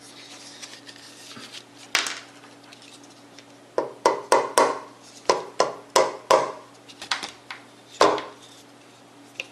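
Small plastic and metal parts of a PC case fan being handled and fitted on a table: a single tap about two seconds in, then a quick run of clicks and knocks from about four seconds in that stops near the end.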